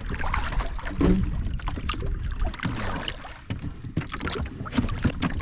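A small boat being paddled out onto a pond: irregular knocks and splashes of the strokes over a low wind rumble on the microphone.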